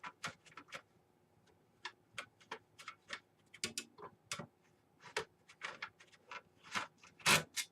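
Irregular light clicks and ticks of a screwdriver turning a small motherboard screw into a case standoff, the loudest click near the end. The screw is not tightening, because the case's motherboard mount is stripped.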